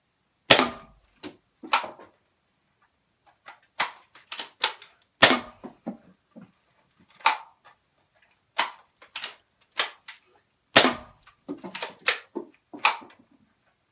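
Nerf Rival Knockout spring blaster firing foam balls: three loud sharp pops about five seconds apart. Between shots come quieter plastic clicks and clacks as the blaster is loaded and its priming handle is pulled down and pushed up.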